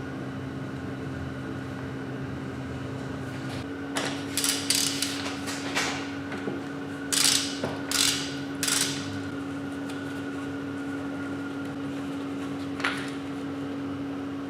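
A steady mechanical hum from a running machine. Partway through comes a cluster of about six short, sharp noisy strokes of workshop handwork, and a single click near the end.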